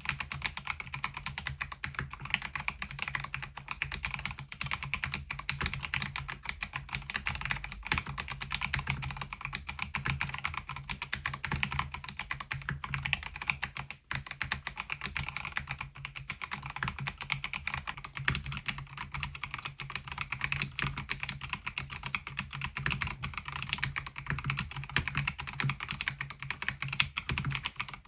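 Fast, continuous typing on a MelGeek Mojo68 mechanical keyboard fitted with MOA-profile keycaps: a steady stream of key clacks, with a brief pause about halfway through.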